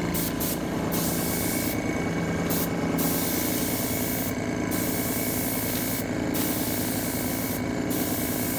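Badger 350 single-action airbrush with a heavy-duty tip spraying aquatint resist, a steady hiss that breaks off briefly every second or so between passes. The airbrush compressor runs underneath as a steady hum.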